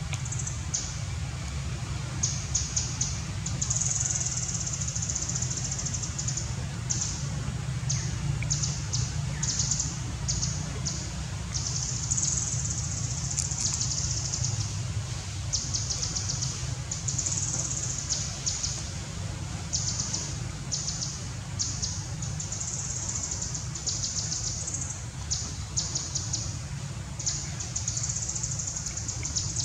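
Outdoor ambience of chirping trills from wildlife: short high-pitched buzzing runs repeat every second or so over a steady low rumble.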